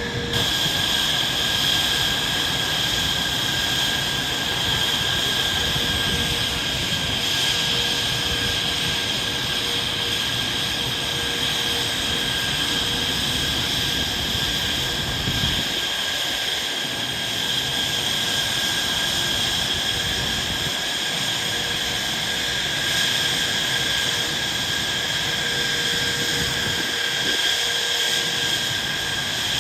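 Jet aircraft engine noise, a loud steady rush with a high whine that holds without a break.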